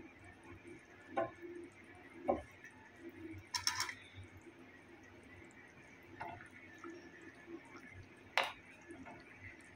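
Chicken and potato curry simmering in a clay pot, with faint bubbling and scattered small pops. Near the end a wooden spoon goes in to stir it, with one sharp knock against the earthenware.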